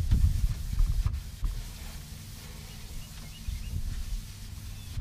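A paper towel scrubbing the floor of a boat's livewell, with rubbing, low knocks and a couple of sharp clicks carried through the hull in the first second or so, then quieter rubbing.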